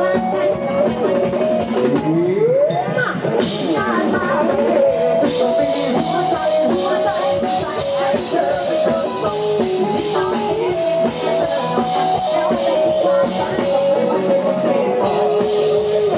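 Live Isan band music: an instrumental passage with a drum kit keeping a steady beat under a stepping melody line, with a rising pitch glide about two seconds in.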